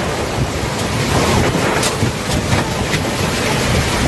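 Heavy rain pouring down in strong gusting wind, with the wind buffeting the microphone as a steady loud rushing.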